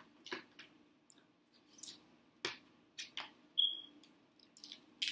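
Close-up eating sounds: scattered wet mouth clicks and smacks from chewing seafood, mixed with soft cracks and squishes as shellfish is pulled apart by hand. A brief high squeak comes about three and a half seconds in.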